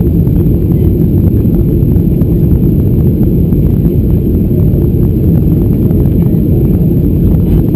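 Cabin noise inside a Boeing 737-800 on final approach with flaps extended: a loud, steady low rumble of the CFM56 engines and airflow, with many light ticks running through it.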